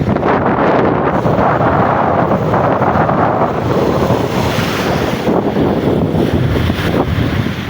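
Strong wind buffeting the microphone in a loud, steady rumble, over the wash of sea waves.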